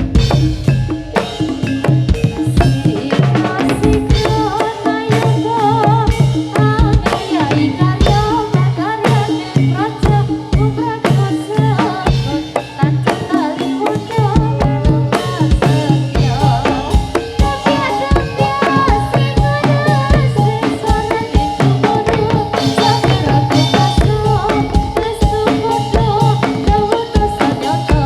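Live Javanese gedrug music led by a ketipung hand drum playing fast, dense strokes, with other instruments holding steady low and mid tones underneath.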